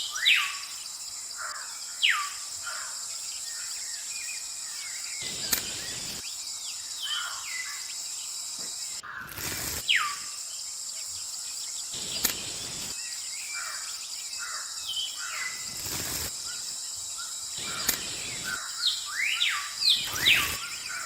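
Birds chirping in many short, quick sweeping calls, over a steady high-pitched hiss, with a few brief bursts of noise.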